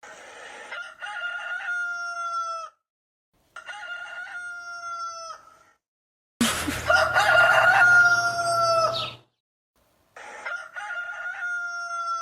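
Rooster crowing four times, each a long cock-a-doodle-doo of two to three seconds that dips slightly in pitch at the end, with short silent gaps between. The third crow, a little past the middle, is the loudest, with a low hum beneath it.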